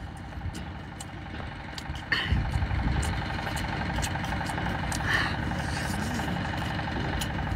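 An engine idling, a steady low rumble that grows louder about two seconds in, with small clicks of someone eating lobster.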